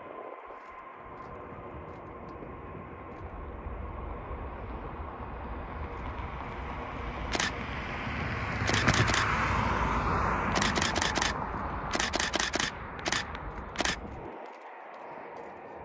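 DSLR shutter (Canon EOS 700D) firing single frames and short bursts of rapid frames over the rumble of a jet airliner passing, which swells to its loudest midway and then fades.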